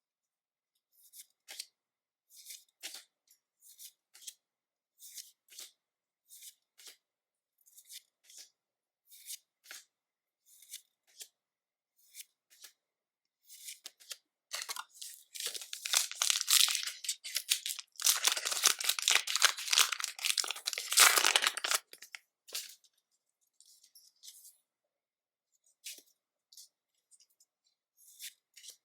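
Pokémon trading cards being handled, with soft crisp clicks about once a second as cards are slid and flipped, then, about halfway through, a foil booster pack being torn open and crinkled for about eight seconds, the loudest sound. The card clicks pick up again afterwards.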